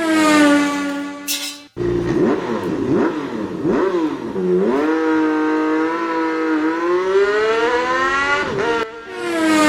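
Car engines revving: one engine note settles and cuts off, then several overlapping engines rev up and down together, with their pitches crossing.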